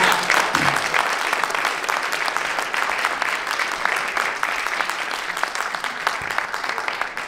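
Audience applause: many people clapping together, slowly dying down toward the end.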